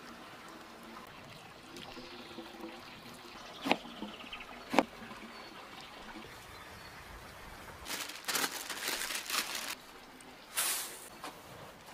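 Food-preparation sounds: two sharp knocks about a second apart, then a couple of seconds of gritty, rattling bursts as coarse salt is ladled onto a metal baking tray.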